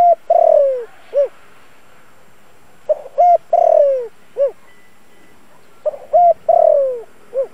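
Spotted dove cooing its song, three phrases about three seconds apart: each a couple of short coos, a long falling coo, then a short final coo.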